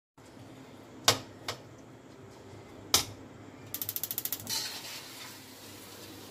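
Ceramic dishes being handled: a few sharp clinks, then a quick rattling run of about ten clicks and a short scrape.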